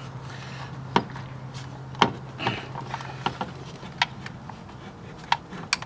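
Scattered sharp clicks and knocks, roughly one a second, of a fuel injection control module (FICM) and its wiring plugs being handled and pressed into place.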